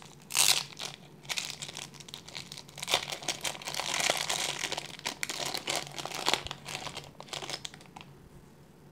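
Thin clear plastic wrapping bag crinkling in irregular rustles and crackles as it is pulled open and worked off small plastic toy pieces, busiest midway and stopping about a second before the end.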